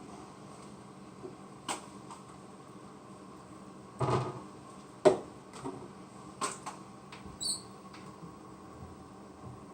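Spice jars and containers being picked up and set down and a kitchen cupboard being handled while spices are gathered: a series of irregular knocks and clicks, the loudest about four and five seconds in, one with a short high clink near the end, over a low steady background hum.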